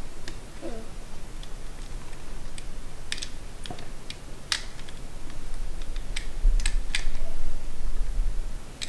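Scattered light plastic clicks and taps as a micro-USB power plug is fumbled against the clear plastic case of a Raspberry Pi 3, with a low rumble of handling on the counter about six to eight seconds in.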